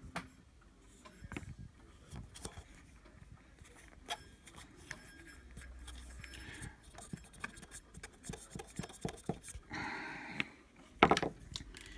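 Handling noise from a plastic Bosch mass air flow sensor: scattered light clicks, taps and rubbing as the housing is turned over in the hands and a cotton swab is worked against it, with a brief hiss about ten seconds in.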